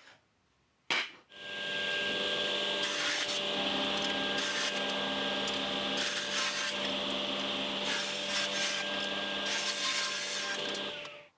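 A table saw ripping thin hardwood strips that are fed with a push stick: the motor runs as a steady hum mixed with the hiss of the blade cutting wood, cutting off suddenly near the end. Before it starts, about a second and a half in, there are two short knocks of wooden strips being set down on a bench.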